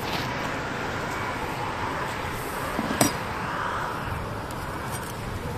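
Wooden beehive box being handled as the upper storey is tipped open, with one sharp knock about three seconds in over a steady background hiss.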